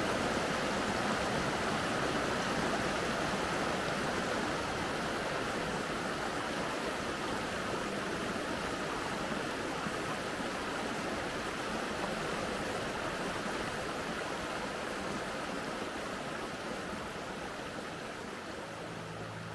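Mountain stream running: a steady rush of flowing water, fading gradually near the end.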